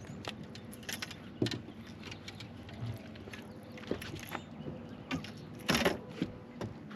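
Scattered clicks, knocks and light clatter of fishing gear being handled in a boat, loudest about six seconds in, over a faint steady hum.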